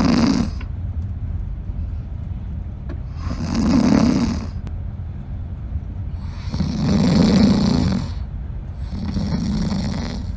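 A person snoring in sleep: four snores, one about every three seconds, over a steady low hum.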